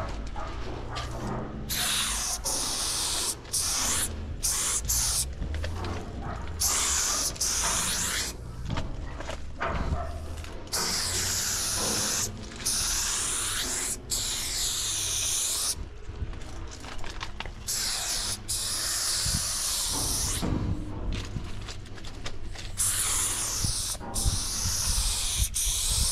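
Aerosol spray-paint can hissing in repeated bursts of about one to two seconds with short breaks between, as paint lines are sprayed onto the side of a freight car.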